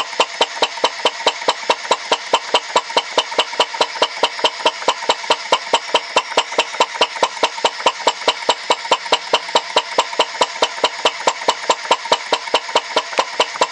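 Alyn Foundry CHUK 2 model engine running steadily, with a sharp, regular clack about four times a second over a steady hiss.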